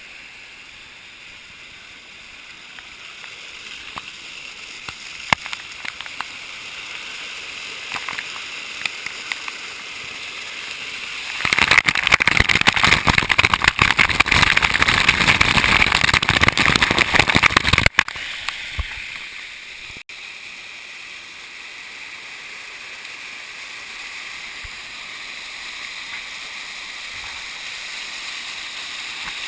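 Waterfall and stream water rushing steadily. From about eleven seconds in to eighteen seconds, a much louder stretch of pouring, splashing water cuts in and stops abruptly.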